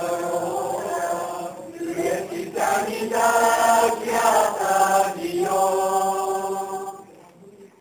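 A mixed choir of young men and women singing together in long held notes; the phrase ends about seven seconds in and the singing briefly stops.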